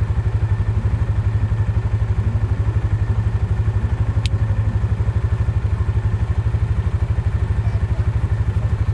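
A vehicle engine runs steadily throughout, its low note pulsing evenly.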